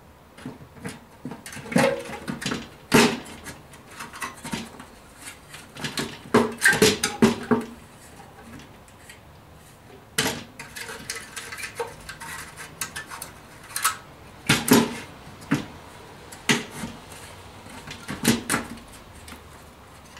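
Parts of a Ubiquiti AirFiber 24 radio, its finned aluminium housing and white plastic reflector cradle, knocking and clicking as they are fitted back together by hand. The knocks come irregularly, in small clusters.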